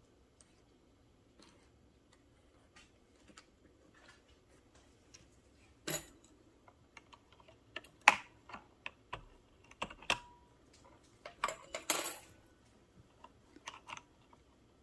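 Plastic keycaps clicking and clacking on a Freewrite Alpha keyboard as Smart Typewriter keycaps are pushed onto it and pressed, too deep to seat properly. Faint scattered clicks come first, then several sharper clacks in the second half.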